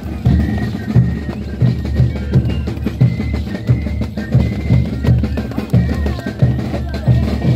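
Andean festival dance music driven by a steady bass drum beat, about two strikes a second, with a thin high melody line over it.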